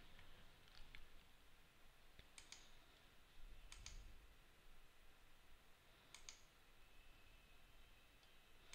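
Near silence with a few faint, isolated computer mouse clicks, spaced a second or more apart.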